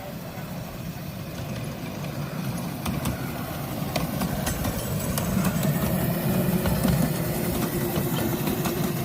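Miniature railway train running and drawing closer: a low rumble that grows steadily louder, with rapid clicking and rattling from the wheels and track from about three seconds in.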